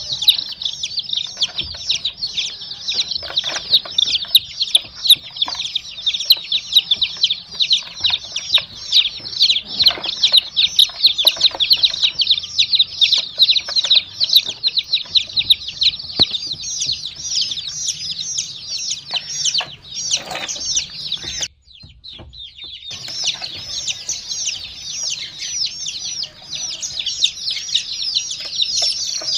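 A group of baby chicks peeping constantly: a dense stream of short, high chirps, several a second. The peeping breaks off for about a second roughly three-quarters of the way through, then resumes.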